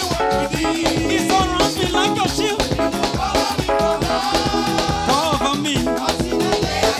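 Upbeat Nigerian gospel praise music played live by a band, with a steady dance beat and melodic lines over it.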